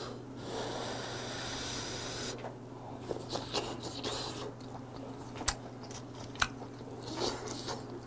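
A person chewing a mouthful of food close to a clip-on microphone. There is a wet, squishy stretch for the first couple of seconds, then scattered crunchy clicks of chewing.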